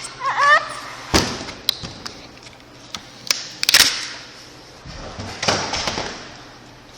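Handling noises from work on a plastic e-bike battery bottom: a brief squeak at the start, then sharp clicks and knocks and short scraping rasps as parts and foam pads are pulled off and moved.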